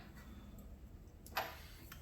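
Mostly quiet, with a single light metallic click about a second and a half in from a wrench or socket on the front axle nut.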